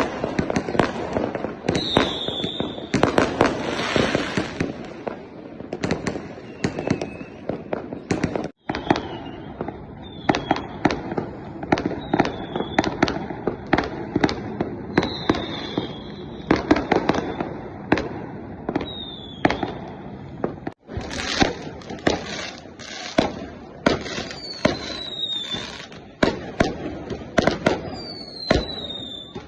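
Aerial fireworks going off: a dense run of bangs over continuous crackling, with short falling whistles every few seconds.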